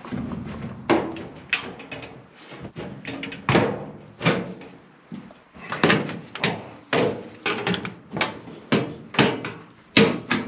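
Galvanized sheet-metal ductwork being banged and shoved into its slip and drive cleats, a tight fit: a string of irregular metal knocks and clatters that come faster in the second half.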